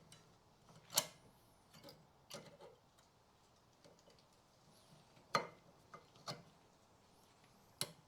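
New rear brake pads clicking and tapping against the metal caliper carrier of a Toyota RAV4 as they are seated and wiggled to check they move freely. About five sharp metallic clicks at irregular intervals, the loudest about a second in and just after five seconds, with fainter ticks between.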